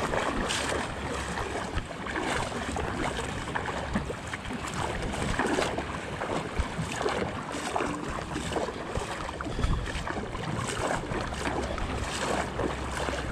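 Shallow seawater sloshing and splashing in uneven, irregular strokes around legs wading through it, with wind rushing on the microphone.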